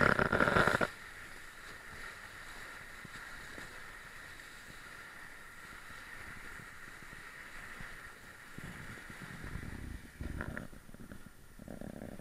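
Dog sled sliding over packed snow: a steady low hiss of the runners on the trail, with a loud scraping rustle in the first second and a few rougher scrapes near the end.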